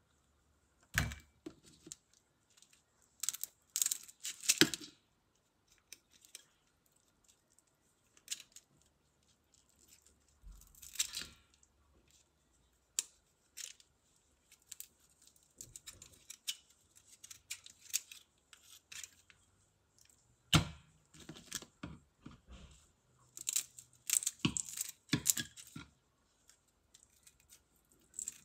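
Kitchen scissors snipping the antennae and whiskers off prawns over a stainless steel bowl: scattered sharp snips and clicks in clusters with quiet gaps, busiest about a second in, around four seconds in, and through the last third.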